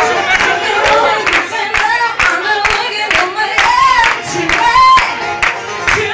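A woman singing live into a microphone over a dance-music backing track with a steady beat, about two beats a second.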